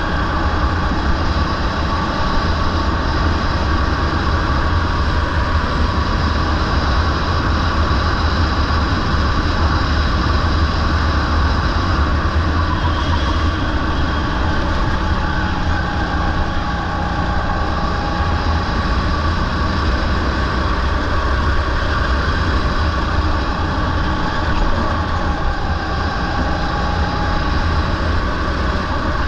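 Rental go-kart's small engine running at racing speed, its pitch dipping and rising slightly with the throttle through the corners, over a steady low wind rumble on the onboard microphone.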